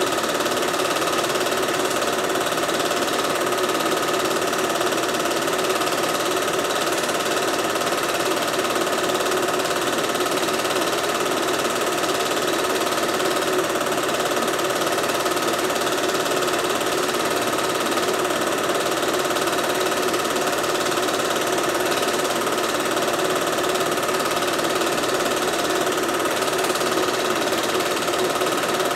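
Home-movie film projector running steadily: a constant motor hum with a fast, even mechanical chatter from the film-advance mechanism, and a steady high tone throughout.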